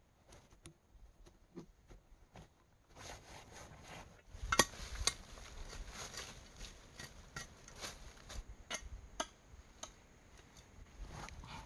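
Irregular clicks, knocks and scraping of stones and soil being moved by hand while clearing a rock crevice, with the sharpest knock about four and a half seconds in. Before that, only a few faint small clicks.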